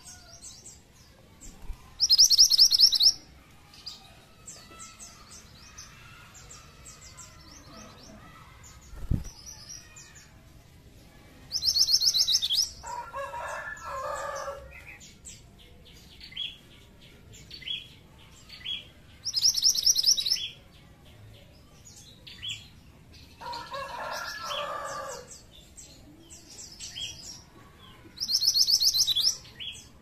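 Minivet (burung mantenan) calling: a loud, high, fast trill about a second long repeats four times, roughly every eight to nine seconds, with short high chirps in between. A lower rattling call comes twice, and there is one brief low thump.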